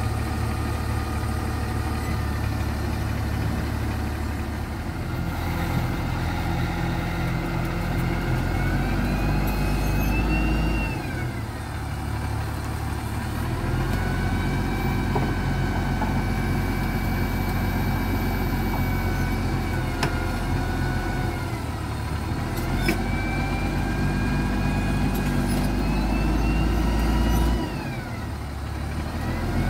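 XCMG GR1803BR motor grader's diesel engine working under load to pull the machine out of mud, revving up and dropping back about three times, with a whine that climbs and falls with the revs.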